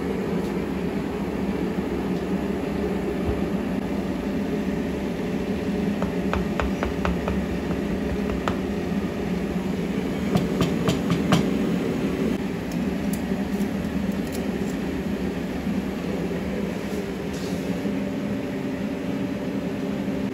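Steady rumbling hum of a gold-melting furnace and workshop machinery. About six to eleven seconds in, a run of sharp metallic clinks comes as steel tongs knock against the crucible and furnace.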